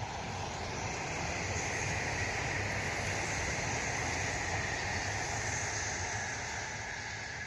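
Taiwan High Speed Rail train passing at speed: a steady rushing whoosh that swells over the first two seconds or so and fades away toward the end.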